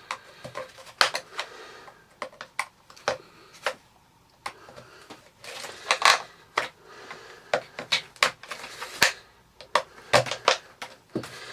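Small screwdriver prying around the edge of a Dyson V6's plastic cyclone shroud: irregular sharp plastic clicks and snaps as the shroud's clips are worked loose.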